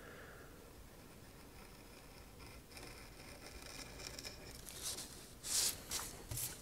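A hobby knife drawn slowly along a steel ruler, scoring thin black paper that has not cut through on the first pass: a faint, steady scratching. Near the end come a couple of short, louder scratchy rustles as the knife lifts and the hand moves over the paper.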